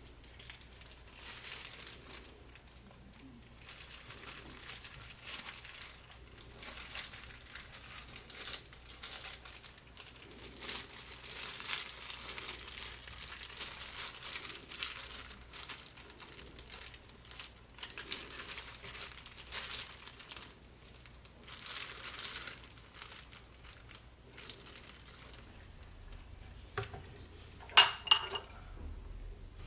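Thin disposable plastic gloves crinkling over and over as soft durian flesh is handled and pressed into a waffle maker. Near the end come a few sharp clicks and knocks as the waffle maker's lid is shut.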